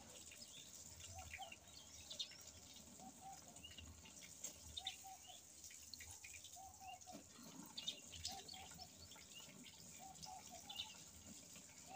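Near silence, with the faint scratching of a ballpoint pen writing on paper and faint bird calls in the background: short repeated notes coming in small groups every second or two.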